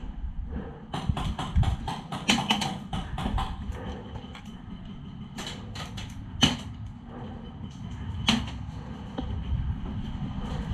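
Airsoft gunfire: a rapid string of sharp snapping shots starting about a second in and lasting a couple of seconds, then a few single shots spaced out, over a low rumble of wind and handling noise on the helmet camera.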